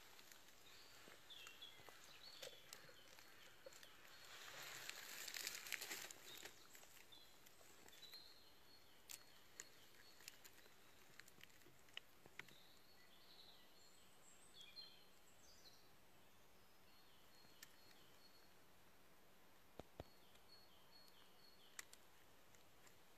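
Very quiet woodland ambience with faint small-bird chirps repeating throughout. A soft rustle of dry leaf litter underfoot comes about four to six seconds in, and a few light clicks are scattered through.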